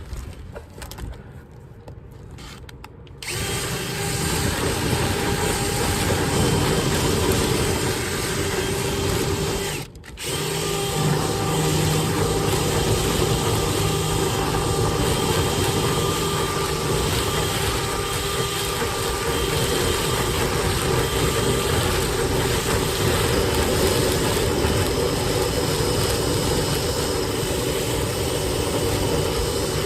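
Power drill running steadily, spinning a rotary brush through a dryer vent duct. It starts about three seconds in, stops for a moment about ten seconds in, then runs on.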